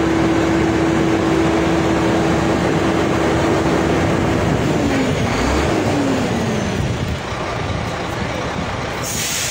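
A heavy diesel truck engine running, about 400 horsepower. Its steady note drops and wavers about halfway through as the revs settle. A short, sharp hiss of air from the air brakes comes near the end.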